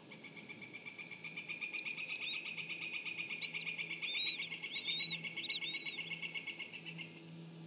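Bald eaglets calling as they beg while being fed: a rapid, steady run of high peeps that lasts about seven seconds, with short upward-curving chirps over it in the middle.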